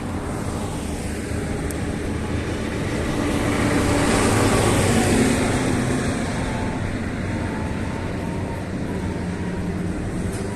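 Street traffic: a motor vehicle passing close by, its engine and tyre noise swelling about halfway through and then fading back into the steady traffic hum.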